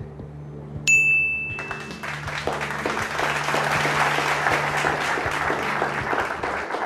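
A short bright electronic chime rings about a second in, followed by a studio audience applauding for several seconds, over a low steady background music bed.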